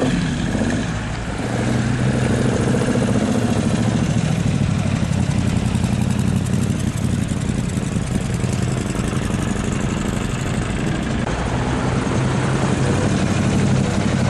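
Morgan Three Wheeler's V-twin engine idling steadily.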